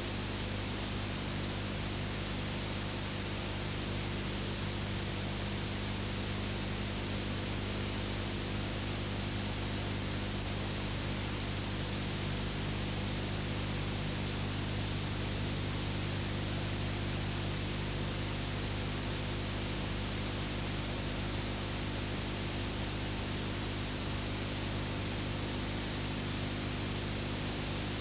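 Steady hiss with a low electrical hum underneath, unchanging throughout: the empty soundtrack of an old silent film transfer.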